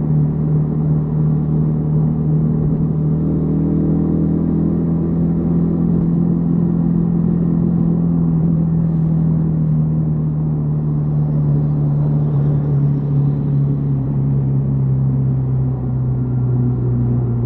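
Yamaha XTZ 150 Crosser S single-cylinder four-stroke engine running steadily while riding, its note easing lower in the second half and picking up again near the end.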